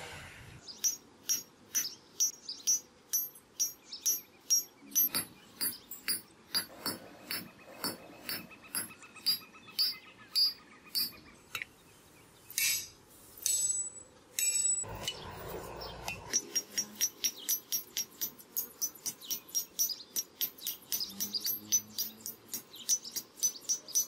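Hand hammer blows on red-hot steel against an anvil: a steady run of ringing metallic strikes at about two a second, quickening to about three a second in the second half. A brief rough rushing noise comes just past the middle.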